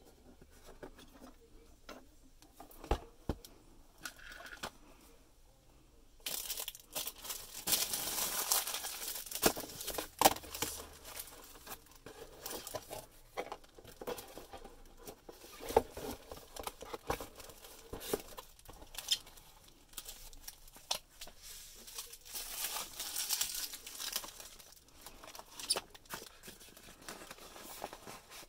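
Clear plastic accessory bags crinkling and rustling in bursts as they are handled and pulled open, starting about six seconds in, with scattered clicks and knocks of items being moved on the bench.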